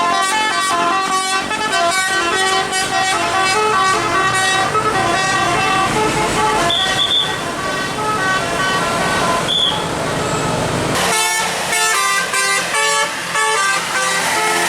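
A bus's 'telolet' musical air horn playing a quick tune of stepping notes, several tones sounding together. About eleven seconds in it changes to short, choppy repeated blasts.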